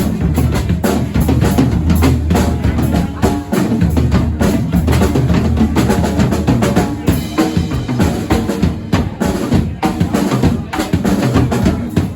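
Music driven by a drum kit, with a strong bass.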